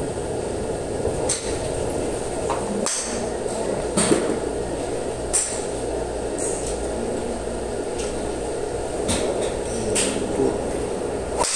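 Sharp clicks of golf clubs striking balls in neighbouring bays of a driving range, about eight at irregular intervals, over a steady hum.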